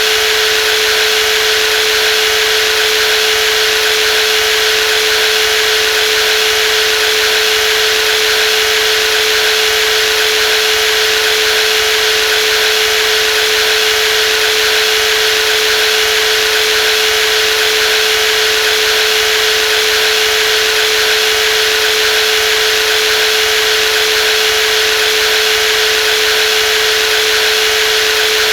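Brushless jigsaw running steadily at constant speed: a loud, unchanging high whine with a hissing rush over it.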